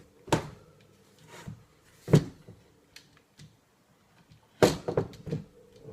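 Hard clacks and knocks of a Blackhawk Knoxx SpecOps Gen II collapsible shotgun stock being handled and worked on by hand: one knock about a third of a second in, another at about two seconds, and a quick run of several near the end.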